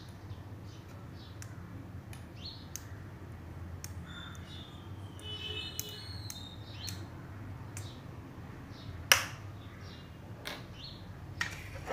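A few sharp clicks as a magnet is handled against a small 5 V relay, the loudest about nine seconds in. Faint bird chirps come and go around the middle.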